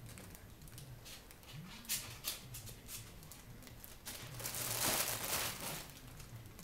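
Faint rustling and a few light taps around an open cardboard box of packaged cat treats, with a louder rustle about four and a half to five and a half seconds in.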